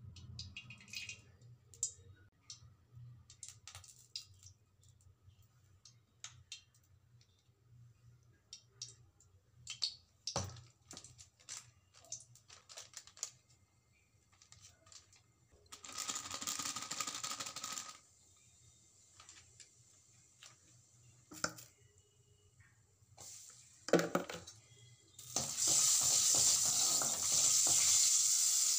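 Scattered clicks and knocks of utensils against a metal kadai, with a short hiss about halfway. Near the end the masala paste hits the hot oil and starts a loud, steady sizzle.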